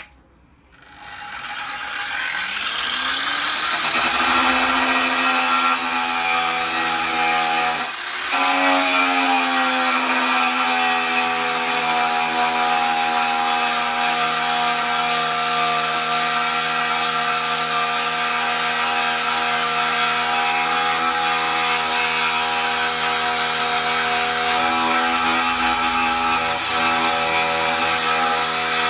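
Stayer AGR24 large angle grinder with a 3 mm Hausen disc soft-starting, its whine rising over about three seconds, then running steadily and loudly as the disc grinds hard fire scale off a Damascus steel billet. About eight seconds in, its level and pitch briefly dip and then recover.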